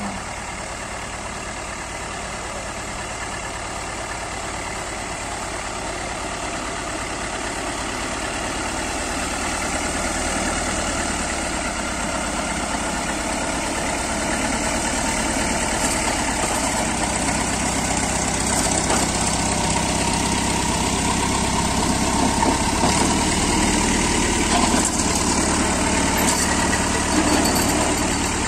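Massey Ferguson tractor engine running steadily, growing louder as the tractor drives closer.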